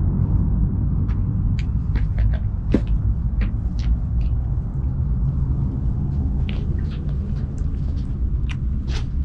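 Wind buffeting the microphone outdoors: a steady, fluctuating low rumble with a scatter of short, faint clicks over it.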